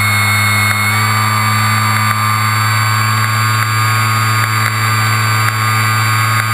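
RC model airplane's engine running steadily at one throttle setting in flight, heard close up from on board the plane, with rushing air noise over it.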